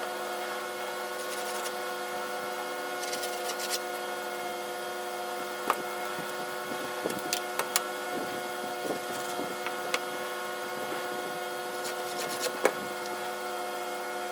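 A steady electrical hum, with light clicks and taps scattered through it.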